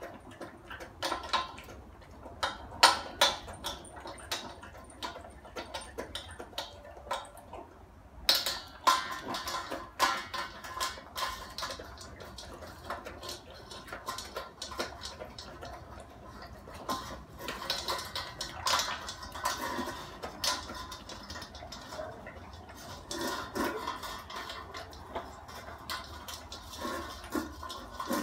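Golden retriever eating dry kibble from a stainless steel bowl: irregular crunching and chewing, with kibble clattering against the metal bowl.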